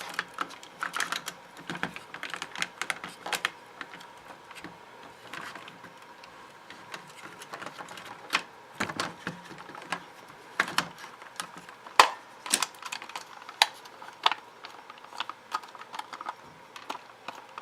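Hard plastic parts of a Buzz Lightyear action figure clicking and knocking irregularly as they are handled and pushed together during reassembly, with a sharper snap about twelve seconds in.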